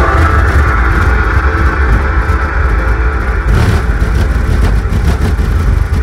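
Bass-heavy music played loud through dual 12-inch Seismic Audio subwoofers in a custom ported box, each driven at 1000 watts; deep bass dominates. About halfway through, brighter sounds join the bass.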